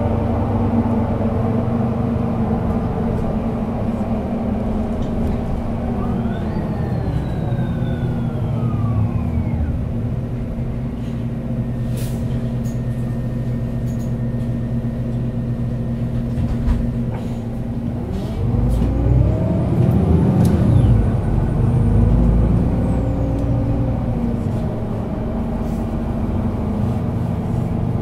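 Solaris Urbino 12 city bus's Euro 6 diesel engine and driveline running steadily. A whine falls in pitch about a quarter of the way in as the bus slows. Near two-thirds of the way in, the engine and driveline whine rise and then fall again as the sound gets louder while the bus pulls away.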